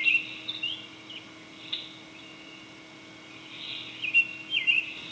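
Birds chirping: short, quick calls that glide down in pitch, in a cluster at the start and another about four seconds in, over a steady thin hiss.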